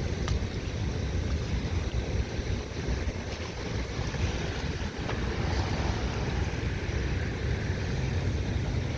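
Strong wind buffeting the microphone, a steady low rumble, with waves on the bay beneath it.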